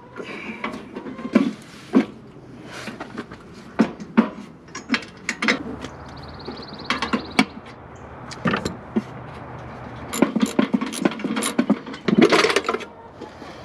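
Hand tools working on metal while a toolbox is fastened to a tractor: irregular clanks and clicks, with a denser run of ratchet-like clicking near the end. A faint steady hum runs underneath.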